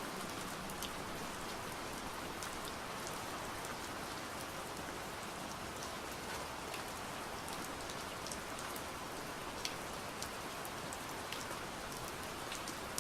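Steady, gentle rain falling on a surface, with scattered individual drops ticking through the even patter.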